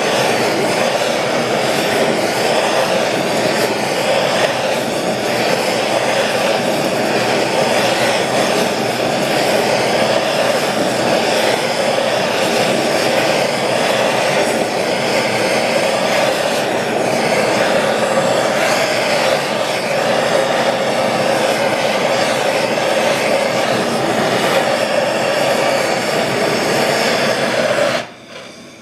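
Handheld gas torch burning turned up high, a steady rushing hiss as it heats aluminum square tubing to brazing temperature. The hiss drops sharply near the end as the flame is turned down.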